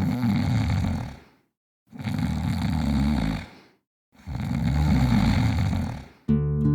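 A person snoring: three long, rasping snores with short silent gaps between them. Acoustic guitar music starts just before the end.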